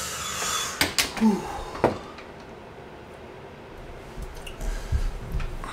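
A glass storm door swinging open: a few sharp clicks of the latch and frame with a short squeak about a second in. Low rumbling handling noise comes in near the end.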